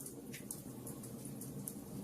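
Fireplace fire burning: a steady low rumble of flames with irregular sharp crackles and pops, several in two seconds.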